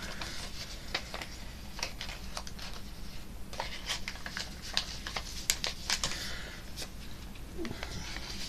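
A sheet of paper being handled and creased by hand while folding a paper airplane: irregular crisp crackles and taps.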